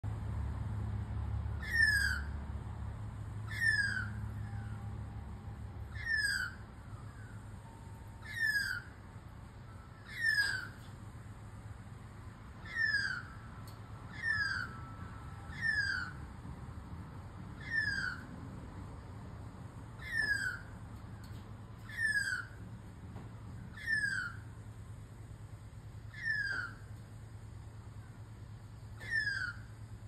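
Young Australian magpie calling over and over, a short squeal that falls in pitch, about once every two seconds: a lost juvenile calling for its family.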